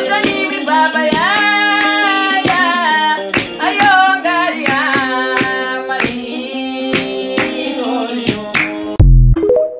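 Music: a woman singing with a wavering, gliding voice over a steady held instrumental accompaniment, with sharp percussive strikes. About nine seconds in, a short loud low thump cuts in and the sound then stops.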